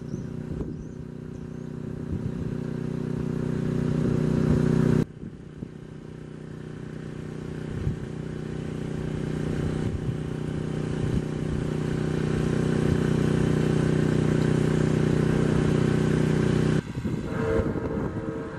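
Diesel freight locomotive engines running, a steady droning hum that grows louder as the train approaches. It cuts off suddenly about five seconds in and builds up again. Near the end a locomotive horn starts to sound.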